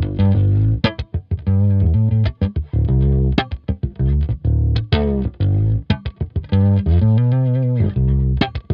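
Bass Collection Jive Bass fretless electric bass played solo: a run of plucked notes, some sliding between pitches, with a longer held note about seven seconds in that bends in pitch.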